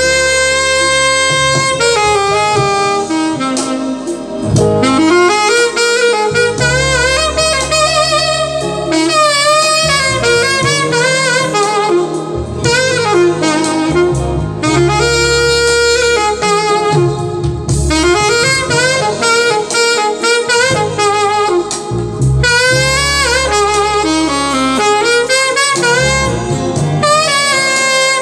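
Saxophone playing a slow melody, its held notes wavering with vibrato, over an accompaniment of long, held bass notes.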